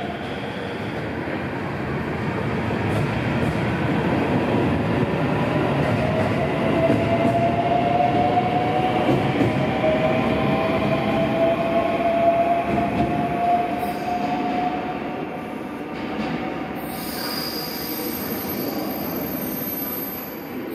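521 series electric multiple unit pulling out and accelerating away. Its traction motors whine and rise slowly in pitch over the rumble of the wheels on the rails, and the sound grows loudest as the cars pass, then fades as the train leaves. Near the end a thin, very high steady tone comes in.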